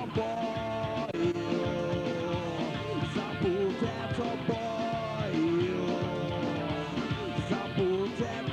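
Rock band playing an instrumental passage between sung lines of a song, with long held melody notes over a steady band backing.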